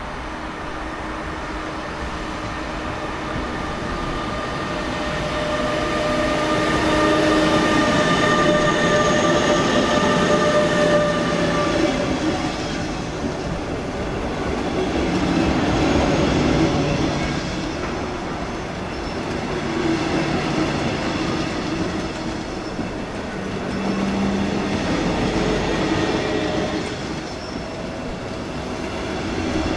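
DB Class 146 electric locomotive and double-deck regional coaches rolling slowly past along the platform: a steady whine and the rumble of wheels on track, louder as the train draws alongside about six seconds in, with a few brief high wheel squeals.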